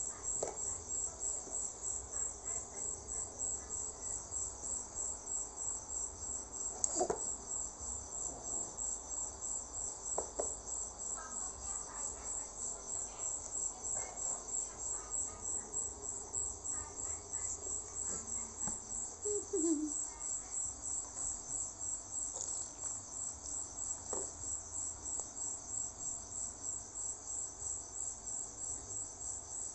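Cricket chirping in a high, steady, evenly spaced pulse, with a few light taps on a plastic tray.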